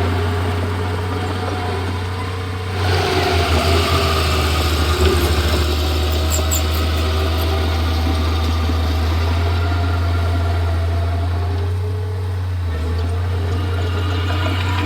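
Komatsu D31P bulldozer's diesel engine running steadily, growing louder and busier about three seconds in.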